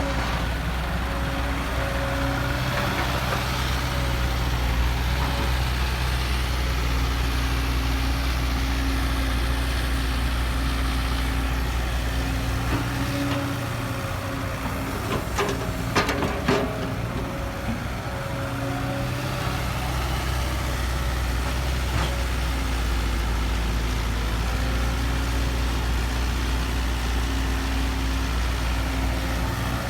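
Heavy diesel machinery engine running steadily with a low drone. About halfway through, the low rumble eases for several seconds, and a few sharp knocks come in that stretch.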